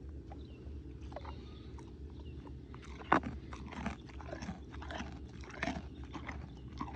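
Mini highland cow biting and chewing a carrot: irregular crunching, with a sharper crunch about three seconds in.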